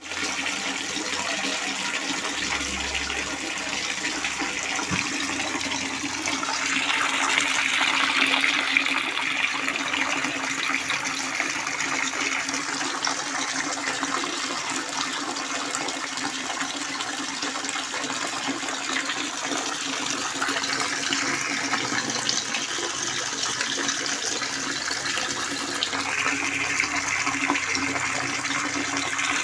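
Water pouring and splashing steadily from a pancuran water spout. It gets louder about seven seconds in and again near the end.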